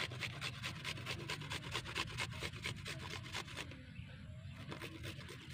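Garlic cloves rubbed hard and fast on a flat stainless-steel hand grater, a rhythmic rasping of about six strokes a second. The strokes stop about two-thirds of the way through, leaving only a few scattered scrapes.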